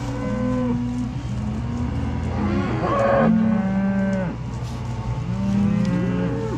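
Several beef cows mooing, one long call overlapping the next with hardly a break, the loudest about three seconds in. The herd is bawling for its feed of range cake.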